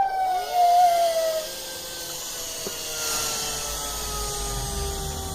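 Vacuum cleaner motor running, a whine with hiss whose pitch falls slowly and steadily.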